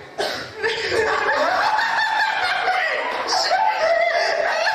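High-pitched human voices, laughing and vocalizing in long gliding tones without clear words.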